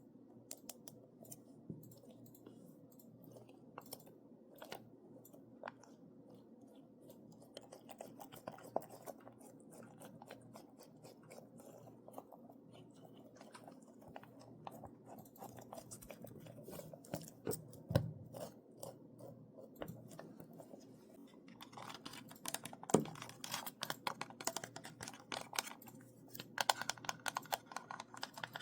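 ASMR tapping on assorted objects: light, quick taps and clicks, scattered at first and coming much thicker and faster from about 22 seconds in, with a duller knock about 18 seconds in.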